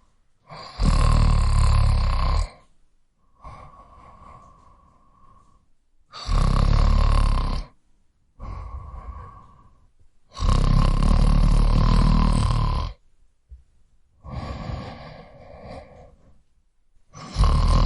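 A man snoring loudly: four loud snores, each about one and a half to two and a half seconds long, coming roughly every five to six seconds, with much quieter breaths between them.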